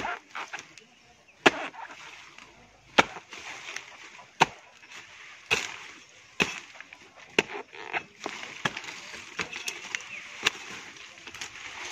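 A hand-held blade chopping into the fibrous crown of a felled coconut palm: about ten sharp chops, roughly one a second, irregularly spaced, as the palm heart is cut out.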